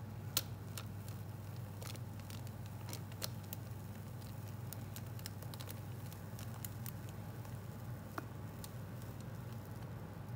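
Thick, soft cake batter pouring from a bowl into a parchment-lined pan: scattered small wet pops and clicks, the sharpest about half a second in, over a steady low hum.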